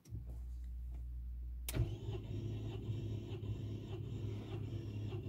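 A steady low hum, then a clunk about a second and a half in as the starter engages and a Rover K-series four-cylinder petrol engine cranks over on its starter motor with an even, pulsing rhythm. It does not fire, because the spark plugs are out for a compression test.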